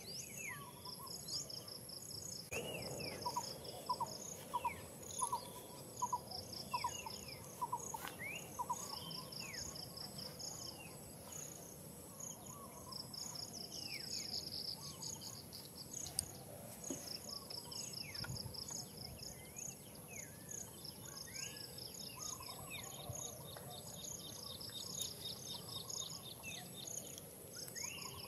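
Forest ambience: insects shrilling steadily and chirping in fast pulsed trains, with birds calling in short falling notes throughout. In the first third a series of short calls repeats about twice a second, the loudest sound.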